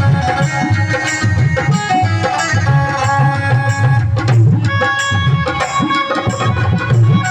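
Instrumental bhajan music: tabla playing a steady rhythm under a melody of held notes, with a brief break about four seconds in.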